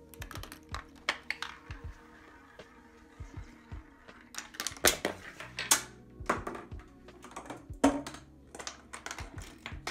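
Irregular clicks, taps and clattering knocks of a homemade chain-reaction machine's K'nex and wooden parts and balls striking, dropping and rolling, with the sharpest knocks clustered in the middle. Faint music plays underneath.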